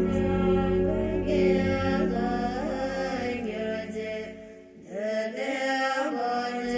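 Music of chanting voices over a sustained drone. It dips briefly about two-thirds of the way through, then resumes.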